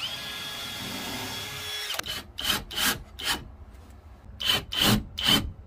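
A cordless drill-driver whirs steadily for about two seconds, driving a screw into a wooden panel, and stops abruptly. Then come two runs of short rasping strokes on wood, about three a second.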